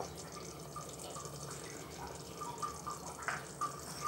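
Thick rajma curry simmering in the pan, its bubbles popping in short, irregular plops over a low steady hum, with one sharper tick a little past three seconds in.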